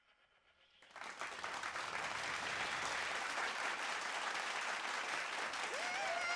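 Audience applause breaking out about a second in, with a whoop near the end.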